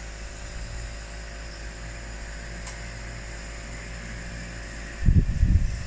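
Compressor nebulizer running with a steady hum. Muffled low bumps come in about five seconds in.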